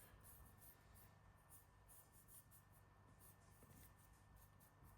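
Near silence with faint, repeated scratchy strokes of a paintbrush working paint over a 3D-printed resin figure.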